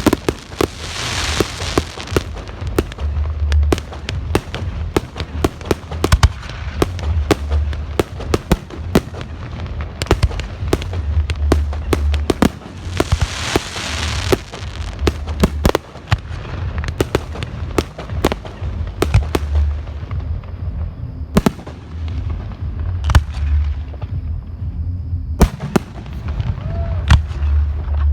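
Fireworks display: a rapid, irregular string of aerial shell bursts going off one after another. Spells of crackling come near the start and again about halfway through.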